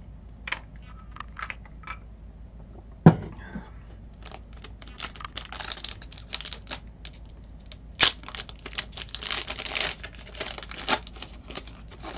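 Wrapper of an Upper Deck trading-card pack being torn open and handled, a dense run of crinkling with sharp tearing crackles, loudest in one sharp crack about eight seconds in. A single thump comes about three seconds in, before the crinkling starts.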